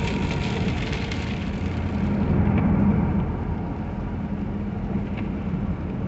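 Steady road noise of a car being driven, heard inside the cabin: engine and tyres on a wet road, swelling slightly two to three seconds in.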